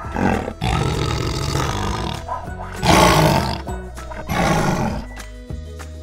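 Big-cat growling and roaring sound effect voicing a cartoon cheetah: four snarls, the loudest about three seconds in, over light background music that carries on alone near the end.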